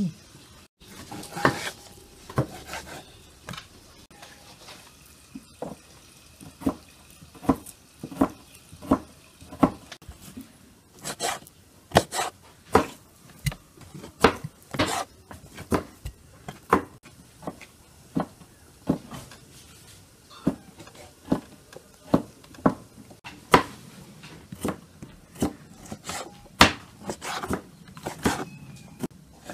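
Kitchen knife knocking on a wooden cutting board as beef and sheep tail fat are cut into cubes: a steady series of sharp knocks, roughly one or two a second.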